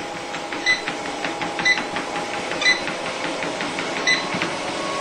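Running home treadmill: a steady motor hum with a short, slightly ringing click about once a second as the belt turns.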